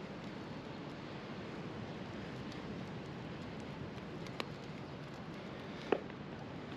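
Steady outdoor background noise of wind and sea, with two short clicks from handling a hook rig and crab bait, about four and a half and six seconds in, the second the louder.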